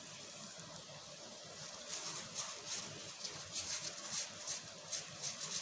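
Ghee sizzling and crackling on a hot tawa as it is spread over a cooking paratha with a spoon; the crackling picks up about two seconds in, after a faint steady hiss.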